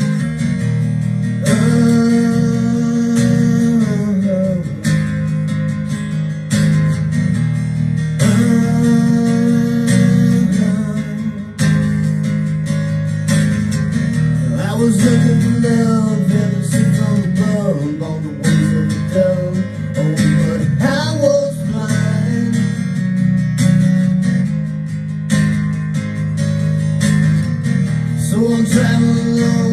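A recorded song playing through an instrumental stretch, led by strummed acoustic guitar over a steady low bass.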